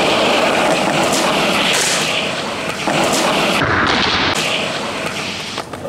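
Skateboard wheels rolling on concrete, heard as a loud, harsh, distorted noise on the camera microphone, with a few sharp knocks of the board.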